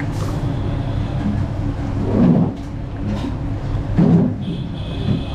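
Steady low mechanical rumble, with two short louder sounds about two and four seconds in.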